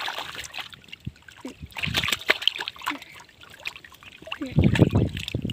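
Water splashing and sloshing in irregular bursts, with a heavier, deeper splash near the end.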